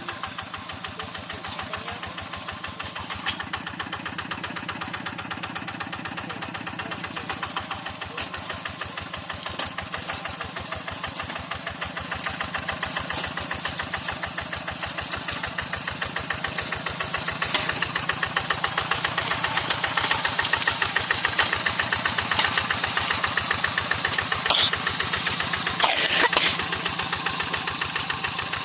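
Single-cylinder diesel engine of a two-wheel hand tractor running steadily while pulling a moldboard plow through soil, with an even firing beat that grows louder through the middle of the stretch. A brief clatter near the end.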